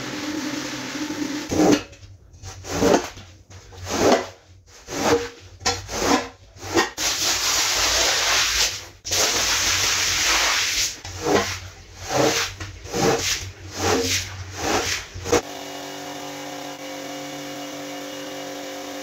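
Rotary floor scrubber's motor humming, then rhythmic swishing strokes over a wet, foamy tile floor, about two a second, interrupted in the middle by a few seconds of steady rushing as a stream of water is poured onto the rug. Near the end a steady machine hum takes over.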